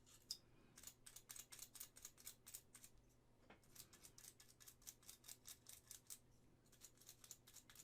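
Faint, quick scratchy ticks, several a second, from small hand-work with a brush at a resin model kit, with short pauses between runs.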